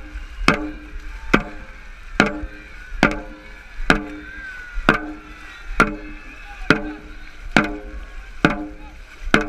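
Dragon boat drum struck by the drummer at a steady beat, a little more than one hit a second. Each hit is sharp, with a short low ring from the drum. The beat sets the paddlers' stroke rate during the race.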